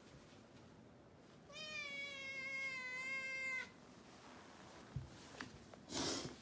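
A kitten meowing once, a single long call of about two seconds that sags slightly in pitch. Later there is a soft thump and a click, then a brief burst of noise near the end.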